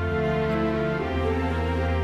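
Background music of slow, sustained chords that change about once a second.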